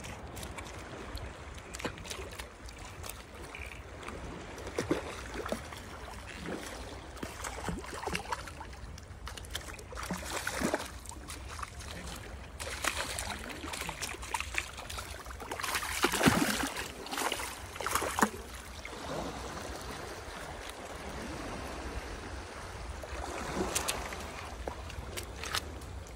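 Sea water lapping and sloshing against the rocks of a breakwater, with scattered splashes and knocks as a hooked fish is pulled from the water and landed on the rocks; the loudest comes about sixteen seconds in.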